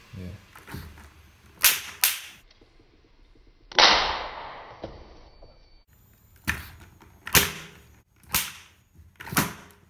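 A homemade LEGO combustion engine being fired by electric-swatter sparks. Sharp crackling snaps come in pairs early on and then about once a second near the end. About four seconds in, the fuel in the cylinder goes off with a loud pop and a hiss that fades over a second or so.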